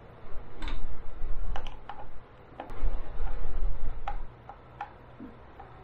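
Small assembly fittings being worked into a particleboard furniture panel by hand: a scatter of sharp clicks, about seven in four seconds, over dull handling and rubbing in two stretches with a short pause between.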